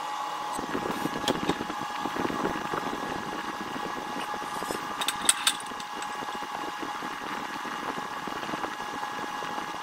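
Milk tea bubbling at a simmer in a steel pot, over a steady hum. A few sharp clicks come about a second in, and a louder cluster of them around the middle.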